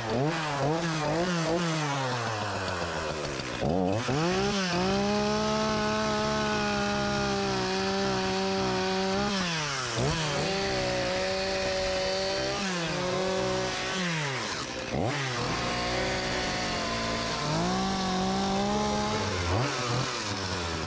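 Two-stroke Echo chainsaw cutting into a wooden block: the engine revs up to full throttle and holds there for a few seconds at a time, then falls back toward idle, three or four times over, with a couple of abrupt breaks.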